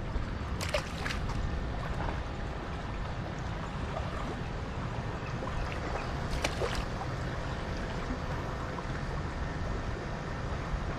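Steady outdoor noise of sea water lapping against a seawall, with a low wind rumble on the microphone. A few short clicks come about a second in and again past the middle.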